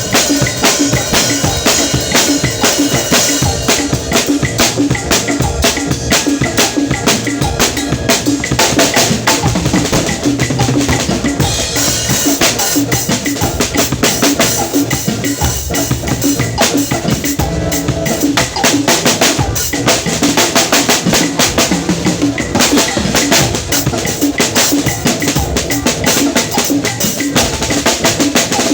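Drum kit being played without a break, with fast, closely packed strokes.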